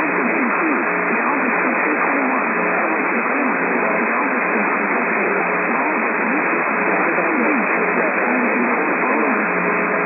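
AM radio broadcast of an Emergency Alert System severe thunderstorm warning: a voice speaking half-buried in heavy static, the sound narrow and muffled.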